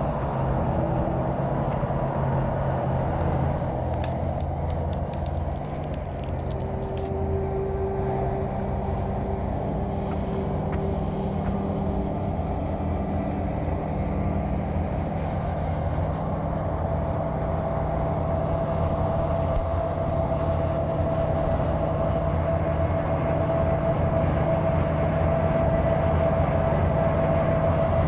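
Steady low mechanical rumble with a constant hum, like a heavy engine running; a quick run of sharp clicks about four seconds in.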